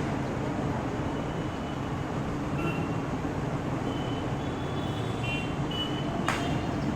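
A steady low rumble of background noise with a few faint, short bird chirps near the middle, and one brief sharp click shortly before the end.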